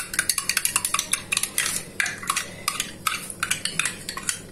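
Metal teaspoon stirring liquid in a glass mug, clinking rapidly against the glass several times a second as yeast and sugar are dissolved in water.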